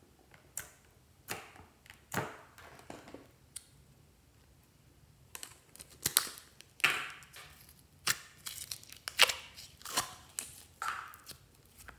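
Small plastic containers handled and opened by hand: a series of sharp plastic clicks and snaps, sparse at first and coming thick and fast in the second half.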